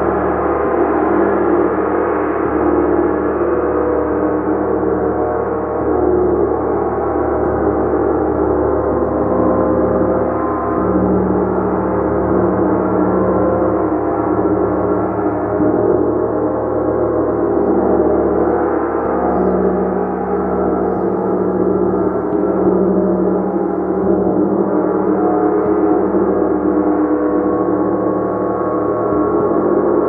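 Gong played continuously: a dense, steady wash of many overlapping ringing tones, with no single strike standing out.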